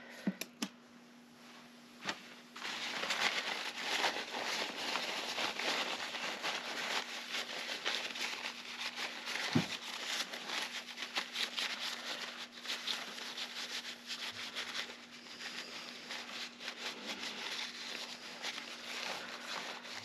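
Paper towel rubbing and crinkling against the brass parts of an old Diebold safe combination lock as they are wiped clean: a dense, scratchy rustle that starts about two seconds in, after a few light clicks of the metal parts being handled.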